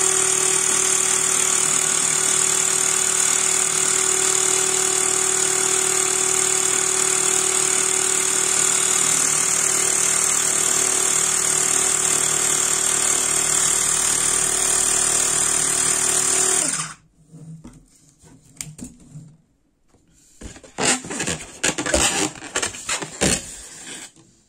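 Xiaomi Mi Portable Electric Air Compressor running steadily at a fixed pitch with a high hiss as it inflates a latex balloon, then cutting off suddenly about 17 seconds in. Near the end come short rubbing and squeaking handling noises from the rubber balloon.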